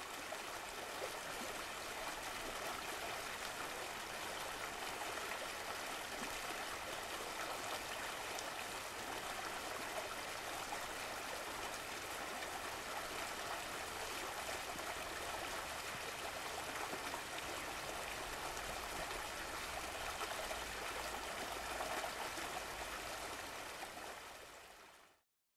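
Steady rushing of a waterfall: an even hiss of falling water that fades out near the end.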